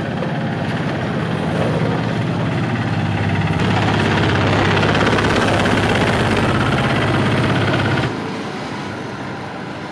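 Engine of a small motorized site dumper running as it drives past close by, growing louder toward the middle. It drops away suddenly about eight seconds in, leaving quieter street traffic with mopeds passing.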